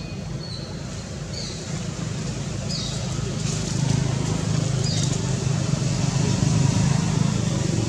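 Low rumble of a motor vehicle's engine, growing louder from about halfway through. Several short high chirps come in the first five seconds.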